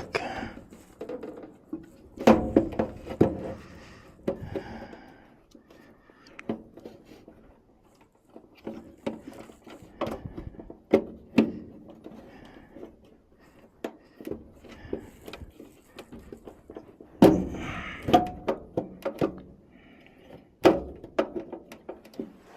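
Irregular knocks, clunks and clicks of parts being handled and fitted at a furnace cabinet, with a few louder clunks spread through.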